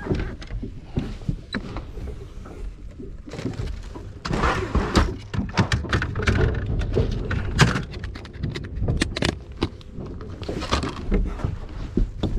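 Handling noise: a run of irregular knocks, clicks and thumps as gear and the camera are moved about, over a low rumble. It is busiest from about four to eight seconds in.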